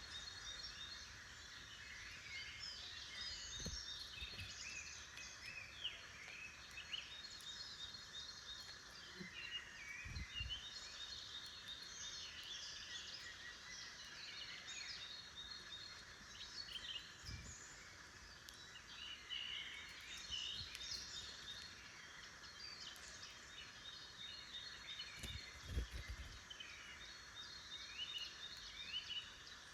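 Forest songbirds chirping and singing, a dense overlapping chorus of short calls and song phrases, with a few soft low thumps now and then.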